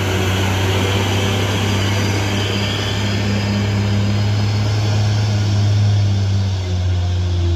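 Mitsubishi Fuso truck's diesel engine running steadily under load as the laden truck climbs a steep, rough grade, a continuous deep drone that swells slightly near the end.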